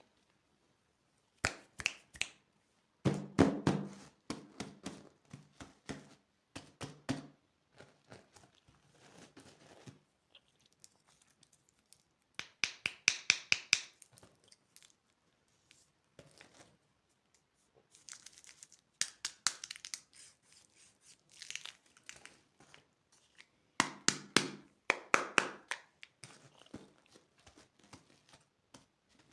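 Candy packaging being torn open and crinkled by hand, in several separate bursts of crackling and tapping with short pauses between.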